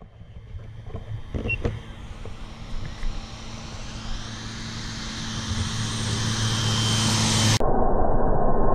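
PAC 750XL single-engine turboprop jump plane approaching on a low pass, its engine and propeller noise growing steadily louder. About seven and a half seconds in, the sound cuts abruptly to a louder, duller engine noise as the plane goes over.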